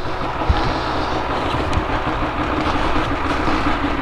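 Snowmobile engine running steadily, with a continuous rattling drone.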